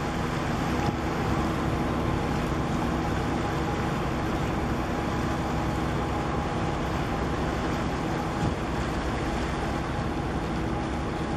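Steady drone of a boat's engine heard from on board, a constant hum over a rush of water and wind noise, with no change in pace.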